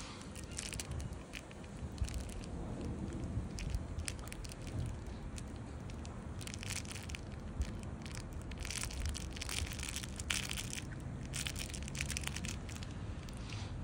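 A one-month-old wolfdog puppy chewing and gnawing a plush toy close up: irregular crackly crunching and rustling, coming thicker in spells about halfway through and again later.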